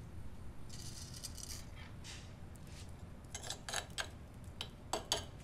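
Volcanic-stone molcajete and pestle grinding chile paste: faint at first, then a run of short scrapes and knocks of stone and spoon against the stone bowl in the last two seconds.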